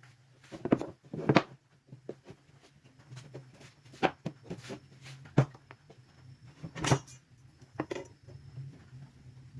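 Irregular wooden knocks and clatters, about a dozen, unevenly spaced and a few much louder than the rest: pieces of wood being handled and set down or tapped together.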